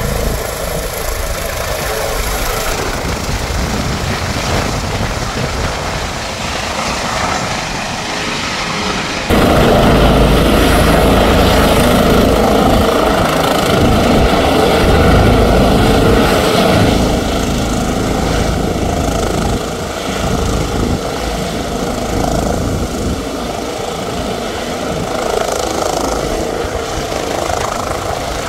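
Airbus H145 twin-turbine helicopter hovering low, its rotor and engines making a loud steady noise. The sound jumps abruptly louder about nine seconds in and drops back somewhat later on.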